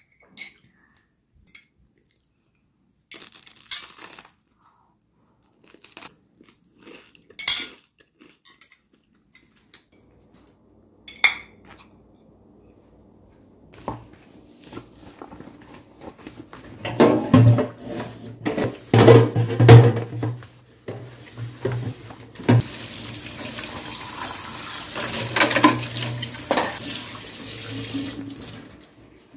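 A few scattered clicks and clinks, then a metal baking pan being scrubbed and knocked against a stainless steel sink, with tap water running steadily onto it for the last several seconds.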